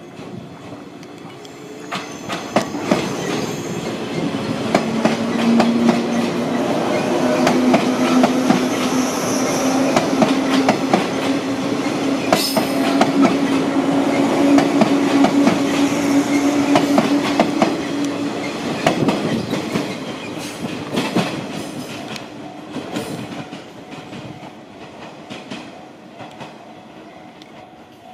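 JR 185 series electric multiple unit pulling out and passing close by. Its low motor hum rises slowly in pitch as it picks up speed, over the clicking of wheels on rail joints. It fades as the train draws away near the end.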